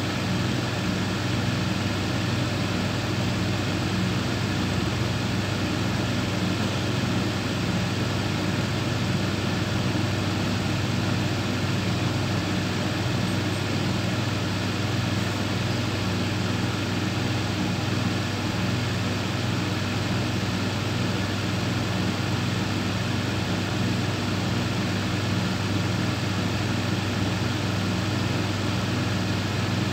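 Industrial thicknesser (wood planer) running steadily, an even machine hum with no change in pitch or load.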